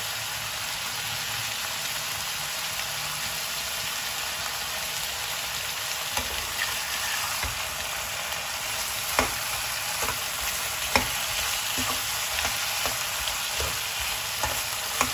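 Elephant yam strips sizzling in oil in a metal kadai, a steady hiss. From about six seconds in, a slotted metal spatula stirs them, knocking and scraping against the pan several times.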